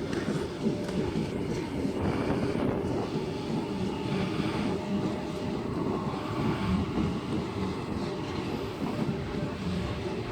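Train running by on the tracks, a steady noise with no breaks.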